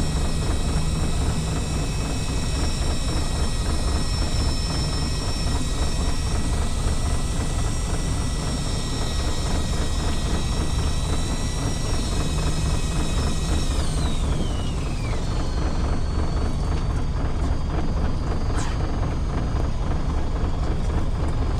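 Fishing boat's engine running steadily with a deep rumble, over a high whine that slides down in pitch and fades about fourteen seconds in.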